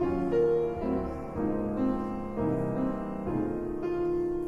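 Intro music played on piano: a slow melody over chords, the notes changing about every half second.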